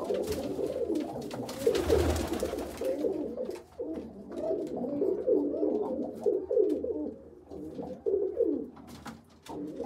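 Domestic pigeons cooing over one another, a run of repeated low rising-and-falling coos, with a few faint clicks among them.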